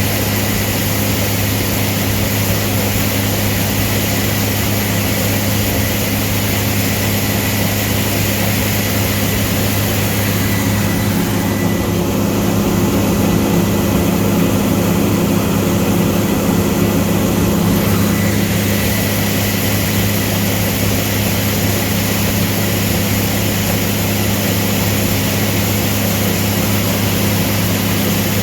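Combine harvester running steadily while combining wheat: a continuous low drone with a steady hum and a hiss on top. Between about 11 and 18 seconds in, the hiss eases and the low hum gets a little stronger before settling back.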